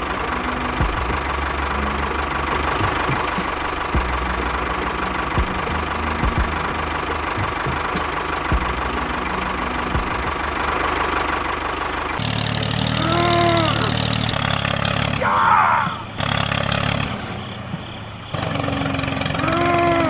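Tractor engine running steadily, with a thin high whine over it. About twelve seconds in the sound changes, and two short tones that rise then fall come in, one shortly after the change and one near the end.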